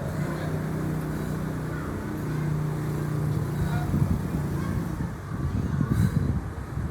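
Wind buffeting the microphone: a low, irregular rumble that grows gustier about four seconds in, over a steady low hum in the first half.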